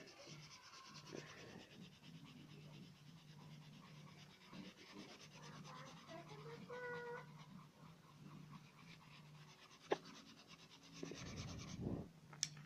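Faint, quiet sound with a low steady hum and light rubbing of a coloured pencil on paper. About seven seconds in there is a brief rising pitched call, and near the end a couple of sharp clicks and a low rumble of handling.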